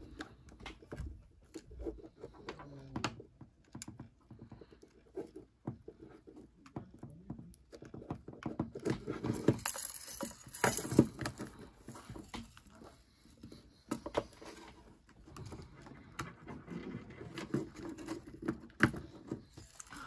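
Irregular small clicks, taps and rubbing as the opened iPod's metal back shell and plastic front are handled and knocked together, with a cluster of louder clicks about nine to eleven seconds in.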